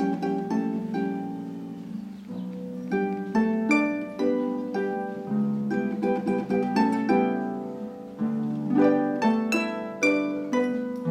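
Solo concert pedal harp being played: plucked notes and chords ringing on over one another, dropping softer about two seconds in and again around eight seconds before building into louder runs.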